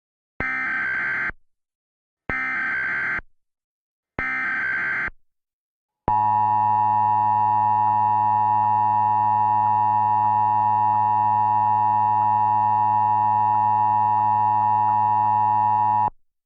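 Emergency Alert System header: three one-second bursts of SAME digital data tones, about two seconds apart. Then the EAS attention signal, a steady loud tone lasting about ten seconds that cuts off abruptly. Here it opens a flash flood warning.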